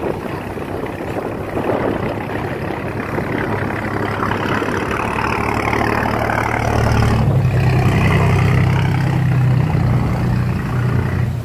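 Engine of a small sand-carrying boat running as it passes close by, a steady low note that grows louder about seven seconds in.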